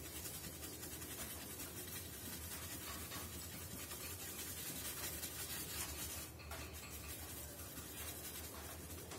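Thin paintbrush stirring and scrubbing thick paint on a styrofoam block, a continuous soft scratchy rubbing, over a steady low hum.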